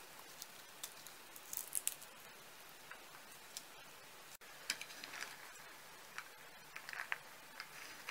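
Cooked pedunculate oak acorns being eaten: faint, irregular crunchy clicks and crackles, busiest around two seconds in and again in the second half.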